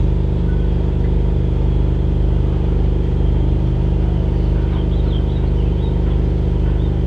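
Steady, even drone of a boat's onboard machinery running, a constant low hum made of several fixed tones.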